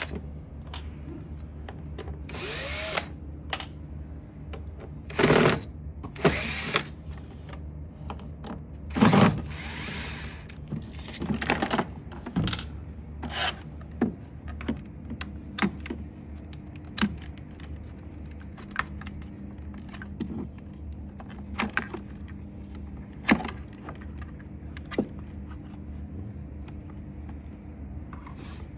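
Handling noise: scattered clicks, knocks and scraping of hard plastic parts being moved about, with a few louder rasping scrapes in the first ten seconds, over a steady low hum.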